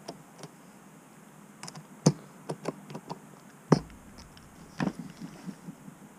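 Light clicks and taps of small plastic and metal model parts and a hand nut driver handled on a tabletop, irregular, with two louder knocks about two and three and a half seconds in, the second as the nut driver is set down on the bench.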